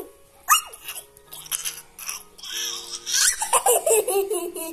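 A young girl laughing and giggling in repeated high-pitched bursts, louder and more continuous in the second half, ending in a falling string of laughs.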